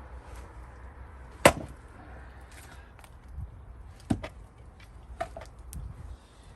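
Gränsfors Bruk axe splitting cherry-wood rounds: one sharp chop about a second and a half in, then a lighter knock about four seconds in, followed by a few smaller wooden knocks.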